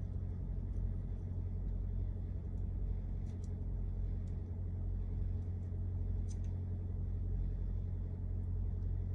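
Steady low background hum, with a few faint light clicks from a small hex driver and parts being worked on a plastic RC truck bulkhead.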